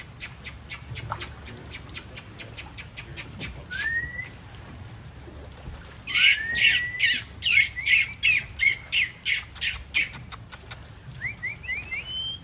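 High animal calls: a long run of quick chirps with a few short rising whistles, busiest and loudest from about halfway until shortly before the end.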